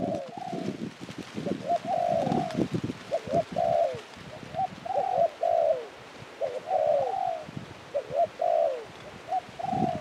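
A dove cooing over and over in quick runs of short, low notes that bend downward in pitch, with brief pauses between runs.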